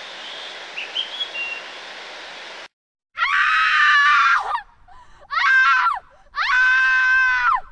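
A faint steady hiss with a couple of brief chirps cuts off suddenly. A woman then screams three times: two long, loud, high-pitched yells with a shorter one between them.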